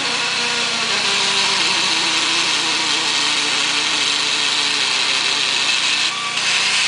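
An engine running steadily under a loud, even hiss, its lower tone wavering slightly, with a brief drop about six seconds in.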